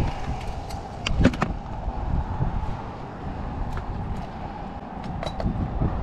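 Wind buffeting the microphone with a faint steady hum beneath it, and a quick cluster of sharp clicks and knocks about a second in, with a few more past five seconds, as gear is handled.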